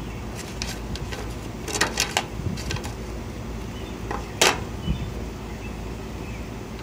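Scattered short clicks and taps over a steady low hum, a cluster of them about two seconds in and a louder one about four and a half seconds in.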